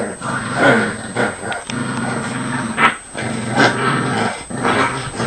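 Two dogs play-fighting, growling almost without pause, broken by a few short sharp cries.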